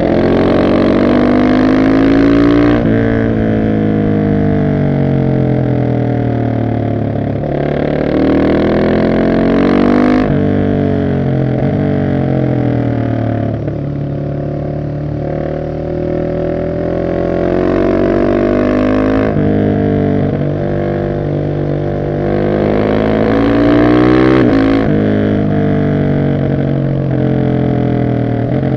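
Husqvarna 701 SM's single-cylinder four-stroke engine through an Arrow exhaust without catalyst, accelerating hard in about four pulls, each rising in pitch and then dropping suddenly at a gear change or roll-off, with the revs falling back between pulls.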